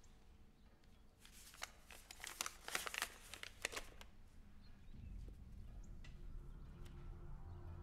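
A folded sheet of lined notebook paper crinkling as it is handled and opened out, in a quick run of crackles that ends about four seconds in. A low rumble comes in about five seconds in.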